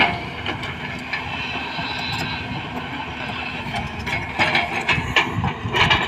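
JCB 215 excavator running, a steady diesel engine noise with a faint hum, with a burst of metallic clanking and clatter in the last two seconds.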